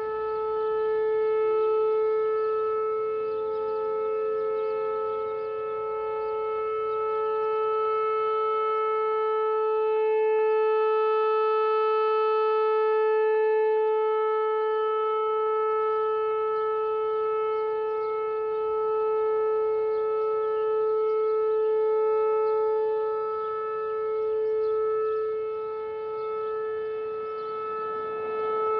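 Whelen WPS-4004 electronic outdoor warning siren sounding a steady tone during a 3-minute test. The pitch holds level while the loudness slowly swells and fades.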